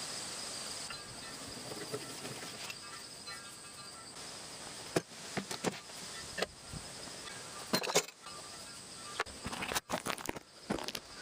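Steady high-pitched insect chirring, with scattered sharp clicks and knocks of something being handled; the clicks bunch up near the end.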